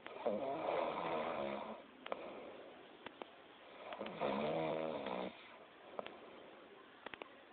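A sleeping person snoring: two long snores about four seconds apart, each a drawn-out pitched drone, with quieter breathing between them.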